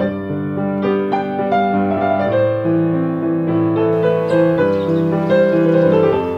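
Solo piano playing a slow, flowing melody over broken-chord accompaniment, the notes ringing into one another. A faint hiss comes in under the piano about four seconds in.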